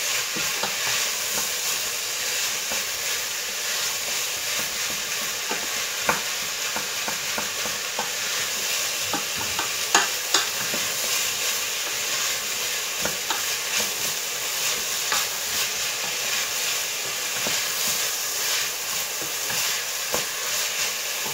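Carrots, onion and garlic sizzling steadily in olive oil in a steel pressure-cooker pot while being stirred with a wooden spoon, the spoon knocking against the pot now and then.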